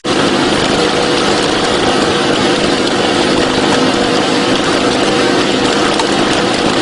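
Boat engine running steadily with an even hum.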